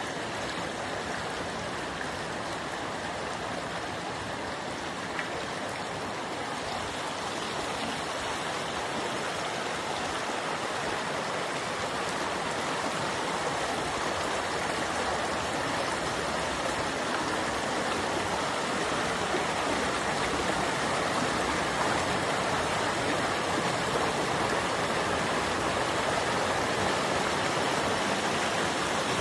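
Stream water running steadily over rocks, growing slowly louder through the clip.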